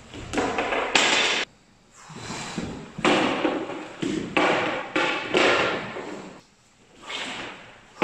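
Thuds and scuffs of two people grappling on a wooden floor, with a long wooden staff knocking and sliding against it. The sound comes as a string of sharp bursts, with two short pauses.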